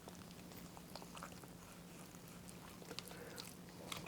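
Faint scattered clicks and soft wet sounds of a knife trimming raw chicken breast on a cutting board, over a low steady hum.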